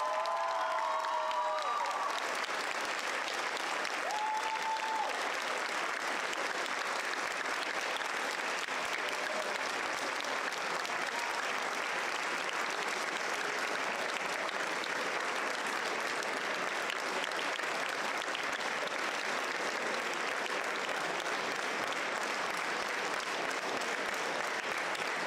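Audience applauding steadily for a long time, with a few voices calling out in the first seconds.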